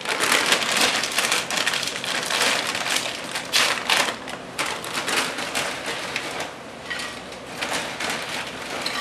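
Plastic bags crinkling, then a bag of round tortilla chips rustling as the chips are poured out onto a plate, in a dense, irregular crackle.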